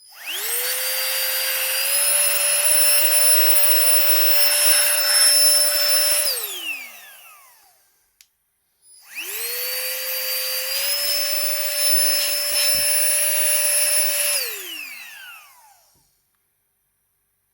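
Nitecore BB Nano electric air blower run in two bursts of about six seconds, blowing dust out of a keypad. Each burst is a high motor whine that spins up, steps up in pitch once, holds steady, then winds down with a falling pitch when released.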